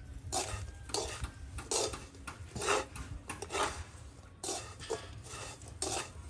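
Long wooden chopsticks stirring and tossing dry, sugar-coated coconut strips in a large metal pan: about ten rustling scrapes against the pan, one every half second or so. The sugar has set into a dry coating on the strips, the late stage of making candied coconut.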